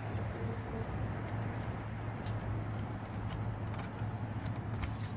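Steady low background rumble, with a few faint clicks as a door knob is handled.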